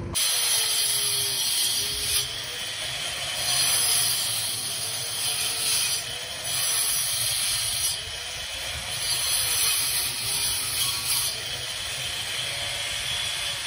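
Corded angle grinder cutting into a cement-plastered wall: a steady, hissing high whine. It swells and eases every second or two as the disc is pressed into the wall and let off, the motor's pitch dipping slightly under each push.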